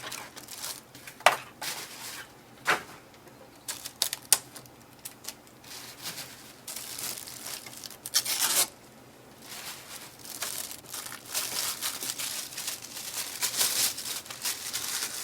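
Plastic wrapping and packing tape being crinkled and pulled off a new printer, with scattered sharp clicks and a longer tearing rip about eight seconds in.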